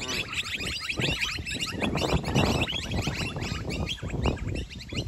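Many birds calling at once: a dense chorus of short, overlapping chirps over a low background rumble.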